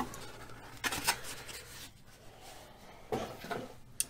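Quiet handling of paper and packaging: a couple of short, soft rustles and a sharp click near the end.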